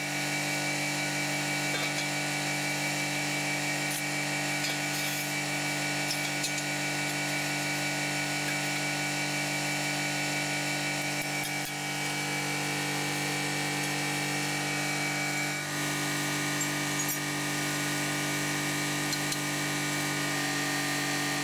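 Small hydraulic pipe-jacking tunnel boring machine running steadily: a constant machine hum with a high whine over it. The tone mix shifts slightly about two-thirds of the way through.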